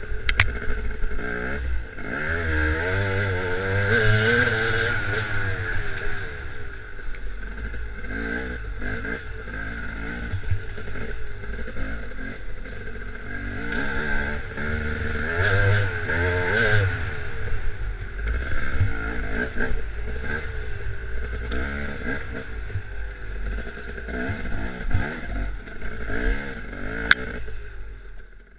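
Dirt bike engine under way, its pitch rising and falling over and over with the throttle, over a low rumble, with scattered knocks of the bike over rough ground.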